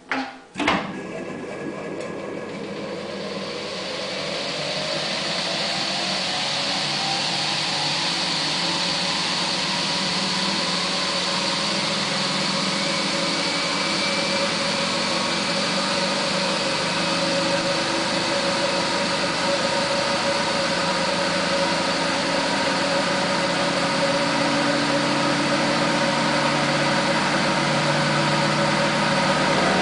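Frigidaire spin dryer starting up: a clunk about half a second in, then the drum motor spins up with a rising whine and settles into a steady run. Spun-out water pours from the outlet spout into a basin.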